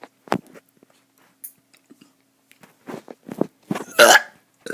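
A child burping: a few short burps, the longest and loudest about four seconds in.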